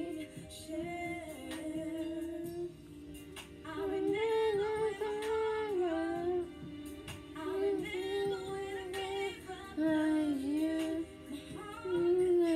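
Music: a woman's voice singing a slow melody, with held notes that slide between pitches.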